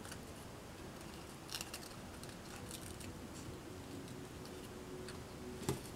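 Small handling noises from hands fitting little pink foam pieces of a miniature pew together: faint clicks and taps, with a sharper click near the end, over a faint steady hum.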